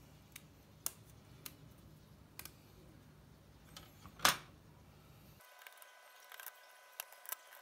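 Small plastic clicks and snaps of lubed mechanical-keyboard stabilizers being fitted into place, one sharper snap about four seconds in.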